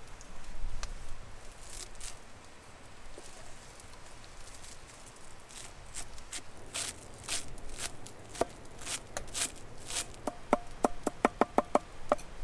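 Knife chopping fresh herbs and green onions on a wooden stump chopping block: scattered cuts from about halfway in, then a quick even run of chops, about five a second, near the end.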